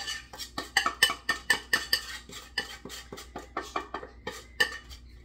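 Metal spoon scraping and clinking against the inside of a stainless steel saucepan as sugar syrup is scraped out, several quick clinks a second.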